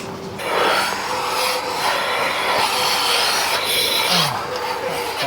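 Steady hiss of milking parlour equipment, with a faint steady hum under it.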